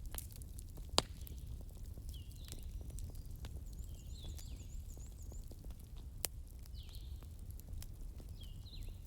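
Wood fire crackling with a low steady rumble and scattered small clicks, and two sharp pops, about a second in and near six seconds in. Short high chirps recur every second or two, with a brief quick trill near the middle.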